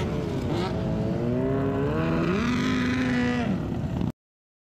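Several sport motorcycles riding past, their engines revving, with the pitch climbing, holding and dropping away. The sound cuts off abruptly about four seconds in.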